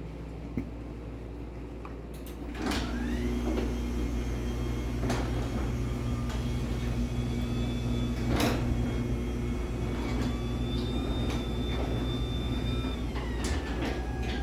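LiftMaster 84505R belt-drive garage door opener running a door along its rail: the motor's hum and whine build up about two and a half seconds in, run steadily, and drop in pitch near the end as it slows. A few sharp knocks sound while the door travels.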